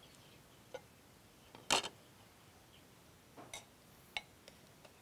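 A metal ladle clinking against a clay pot and a ceramic bowl as broth is ladled out: about five light, scattered clinks, the loudest a little under two seconds in.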